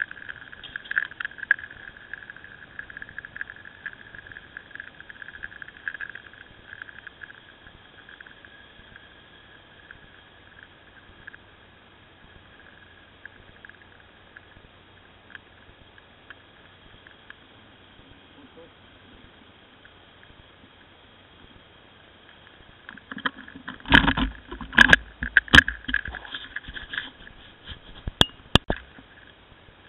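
Muffled ride noise from a motorcycle picked up by a camera mounted on it: a steady, thin hum with crackle, then a run of loud knocks and rattles near the end as the bike goes over rough track.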